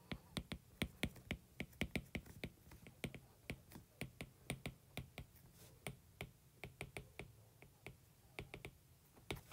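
Stylus tip tapping and clicking on a tablet's glass screen during handwriting: a faint, irregular run of small ticks, about three or four a second, with a short pause near the end.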